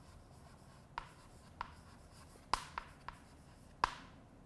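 Chalk writing on a blackboard: faint scratching broken by about six sharp taps as the chalk strikes the board, the loudest nearly four seconds in.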